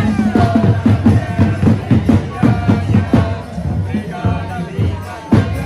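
Procession music: drums beating a steady rhythm, with voices and crowd noise over it.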